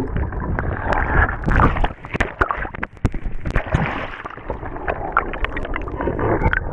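Water splashing, sloshing and gurgling right at the kayak-mounted camera, with many short sharp splashes throughout.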